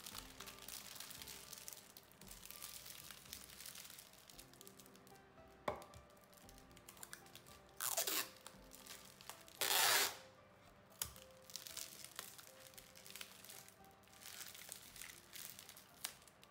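Clear plastic wrapping film crinkling as it is handled, then clear adhesive tape pulled off a dispenser roll in two loud rasping rips about halfway through, the second longer. A single sharp click comes shortly before the first rip.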